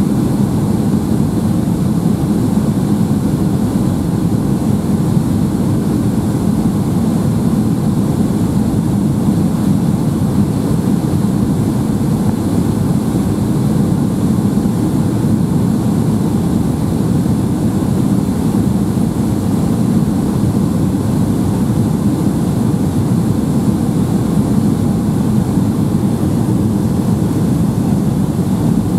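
Steady low drone of engines and rushing air inside the cabin of a Boeing 757-200 descending on final approach with flaps extended.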